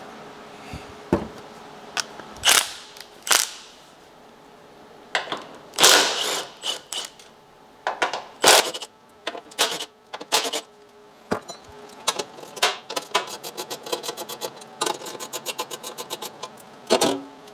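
Hand ratchet clicking as bolts holding a kei truck's front bar are undone, with metallic clinks and knocks of tools and fittings. Near the end the ratchet clicks quickly and evenly.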